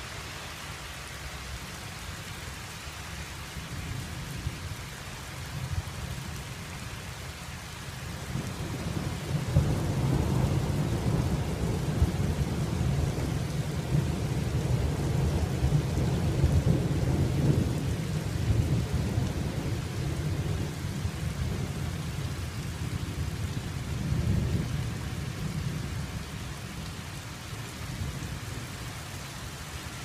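Thunderstorm: steady rain hissing, with a long rumble of thunder that builds about eight seconds in and stays loud for around ten seconds. It swells again briefly later and dies away toward the end.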